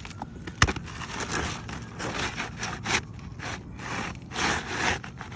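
Irregular rasping, scraping strokes of hand work on roof shingles as a replacement shingle is fitted, with one sharp knock just over half a second in.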